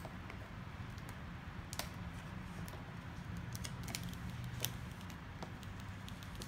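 A squeegee pushed across plastic protective film on a phone screen: scattered small crackles and clicks of the film and its backing sheet, a few sharper ones in the middle, over a steady low hum.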